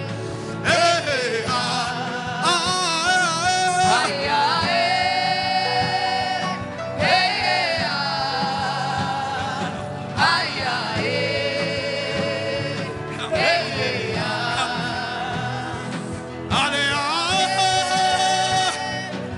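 Gospel worship music: a voice sings long, wavering held notes in phrases about three seconds apart over a steady accompaniment.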